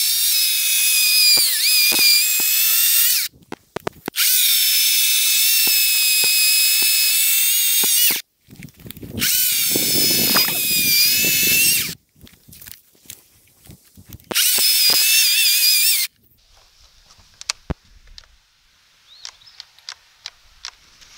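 Greenworks 40-volt cordless electric chainsaw running in four bursts of a few seconds each, a high-pitched motor whine. The third burst carries a lower, rougher grinding as the chain bites into the log. After the short last burst, about sixteen seconds in, the saw stops and stays off: it is cutting itself off again, which the owner blames on an over-sensitive thermal overload.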